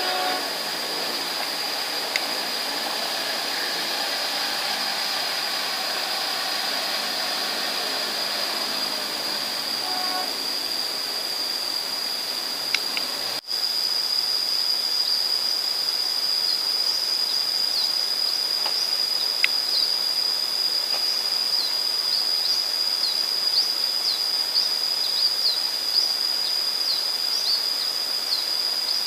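Steady high-pitched insect drone with short chirps over it. A departing passenger train's faint hum fades out over the first ten seconds. After a sudden break about 13 seconds in, the insect drone is a little louder.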